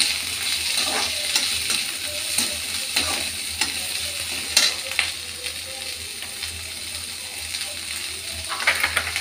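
Chopped onions sizzling in hot oil in a kadhai while a perforated metal spatula stirs them, scraping and clinking against the pan at irregular moments. The onions have just gone in with ginger and garlic and are being fried to soften.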